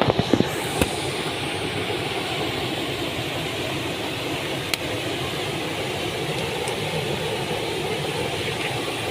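Steady roar of a waterfall: rushing, falling water with no change in level. A few sharp clicks in the first second.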